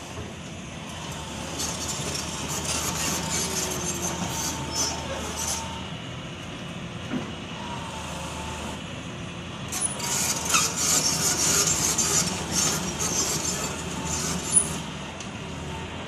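Hitachi hydraulic crawler excavator's diesel engine running as the machine tracks over a gravel pile, with squealing and clattering from its steel crawler tracks in two spells, a couple of seconds in and again about ten seconds in, and a sharp knock near the end.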